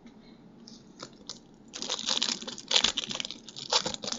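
A foil trading-card pack wrapper being crinkled and torn open by hand, in several quick rustling bursts that start about a second and a half in.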